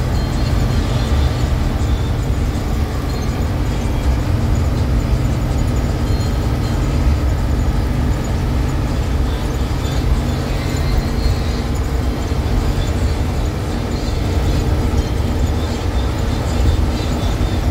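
Steady, loud low rumble of engine and road noise heard from on board an Isuzu FRR33 school bus driving on the highway.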